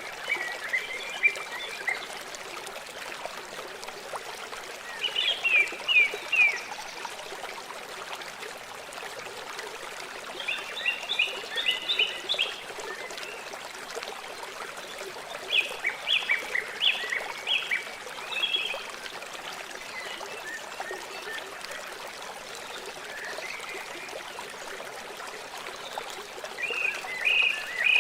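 River water flowing steadily, with a bird calling over it in short runs of quick high notes, five times.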